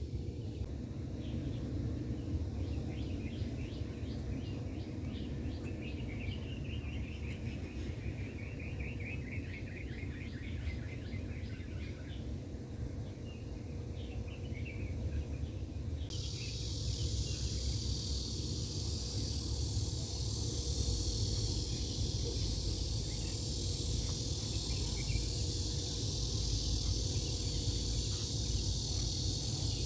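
Outdoor ambience: a steady low rumble under bird chirps and trills in the first half, then a high, steady insect buzz that starts suddenly about halfway through and carries on.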